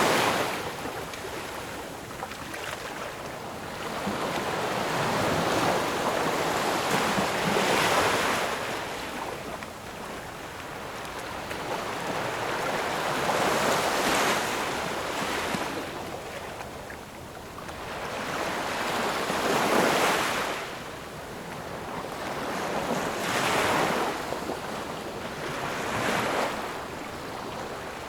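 Gentle ocean waves washing ashore, a steady surf hiss that swells and eases every five or six seconds.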